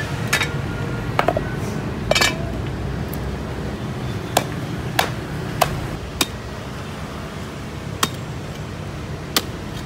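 A cleaver chopping a large grouper's head on a wooden chopping block. About ten sharp strikes land at irregular intervals, some in quick pairs, over a steady low rumble.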